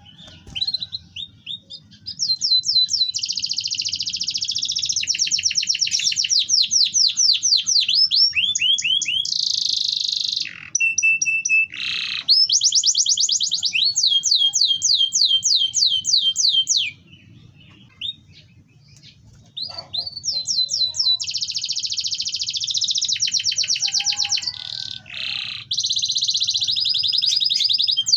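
Domestic canary singing a long song of rapid rolling trills and chirps, each run a fast string of repeated notes. The song breaks off for about three seconds past the middle, then resumes.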